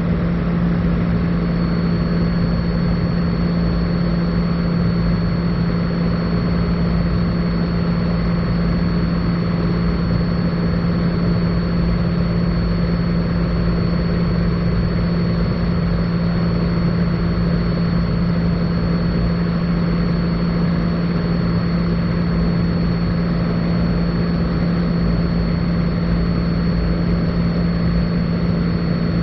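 Cessna 182 Skylane's piston engine and propeller droning steadily in cruise flight, heard inside the cabin as a constant low hum over a dense rush. A thin high steady whine joins about a second and a half in.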